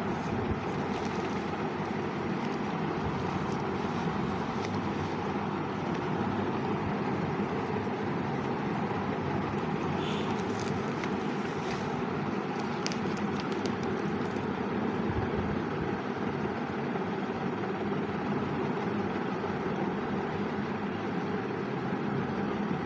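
Steady background noise with no clear pitch or rhythm, with a few faint clicks around the middle.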